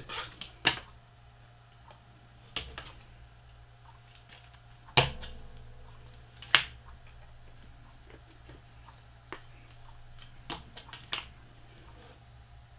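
Irregular sharp clicks and taps from trading cards being handled and sorted on a table, the loudest about five seconds in, over a low steady hum.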